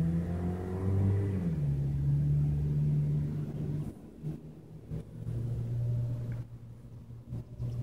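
An engine running steadily with a low hum. Its pitch shifts about a second and a half in, and it drops to a quieter hum about four seconds in.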